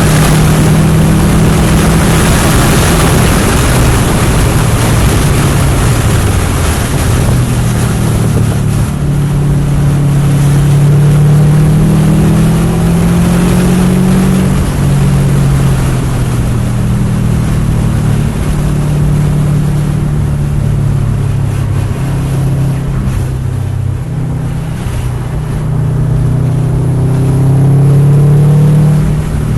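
Turbocharged flat-four of a 2021 Subaru WRX STI fitted with a Blouch 20G-XTR turbocharger, driven hard on track: engine pitch rises under acceleration and drops back at shifts and lifts, several times over. Heavy wind and road noise run under it.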